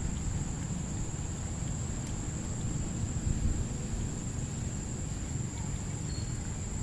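Outdoor ambience: a low, uneven wind rumble on the microphone under a steady high-pitched insect drone.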